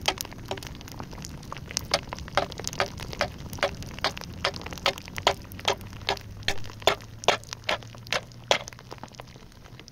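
Open wood fire crackling under a metal tin of roofing tar being melted, with sharp pops about twice a second over a low, steady rumble of the flames.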